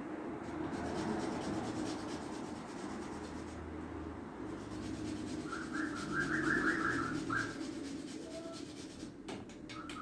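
Whole fresh nutmeg being grated by hand, a continuous scraping of the nut against the grater in quick strokes, with a few light clicks near the end.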